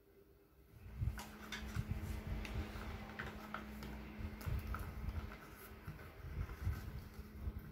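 Plastic spray bottle being handled as its trigger-sprayer head is screwed on: sharp plastic clicks and rubbing with low thumps, over a steady low hum, beginning about a second in.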